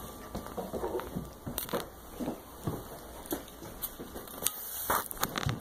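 Plastic packaging crinkling and crackling as it is handled, with scattered sharp clicks and knocks.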